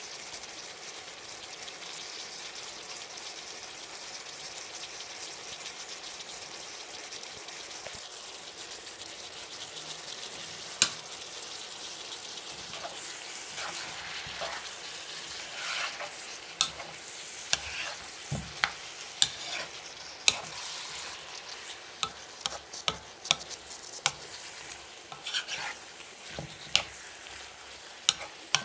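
Tagliatelle, chicken and vegetables sizzling steadily in a wok while being stirred with a plastic spatula. From about halfway through, the spatula knocks sharply against the pan again and again, roughly once a second.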